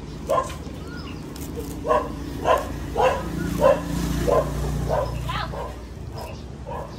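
A dog barking: one short bark, then a run of short barks about two a second from about two seconds in, stopping about two seconds before the end. A low steady hum sits underneath in the middle.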